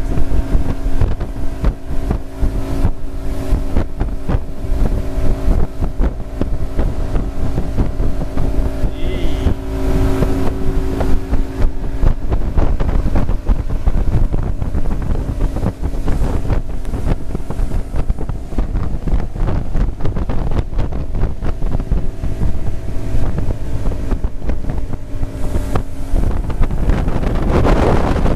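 Mercury outboard motor on a ski boat running steadily at towing speed, with wind buffeting the microphone; the engine note shifts near the end.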